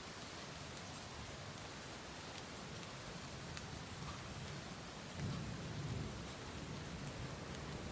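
Steady rain, an even hiss with scattered ticks of single drops. A low rumble of thunder swells about five seconds in and fades a second later.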